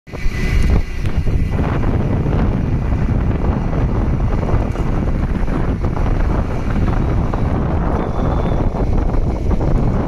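Wind rumbling steadily on the microphone, mixed with a vehicle's running and road noise, while riding along a street.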